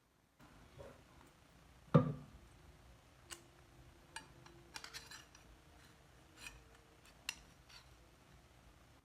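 Metal objects being handled on a workbench: one heavy knock about two seconds in, then a series of light metallic clinks and taps.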